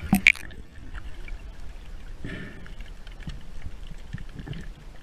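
A grey seal plunges under at the surface: a brief sharp splash and rush of bubbles right at the start. Muffled underwater water noise with scattered faint clicks and low swishes follows.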